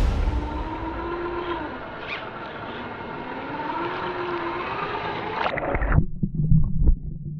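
Small electric motor of a 1/18-scale Traxxas TRX-4M RC crawler whining, its pitch rising and falling with the throttle, over rushing stream water. About six seconds in the sound drops to a muffled, low underwater rumble with a few knocks.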